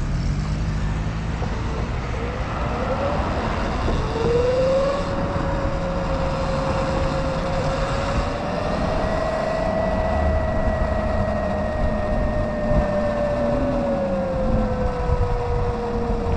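Sur-Ron X electric dirt bike riding, its motor whine rising in pitch about four seconds in, holding, then sinking slowly as it eases off near the end, over a steady low rumble.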